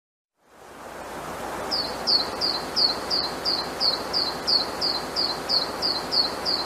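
A short, high chirp falling in pitch, repeated evenly about three times a second, over a steady hiss that fades in at the start.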